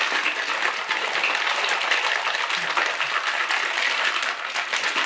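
Plastic shaker bottle of liquid drink mix being shaken hard and continuously, a dense steady slosh and rattle that stops abruptly.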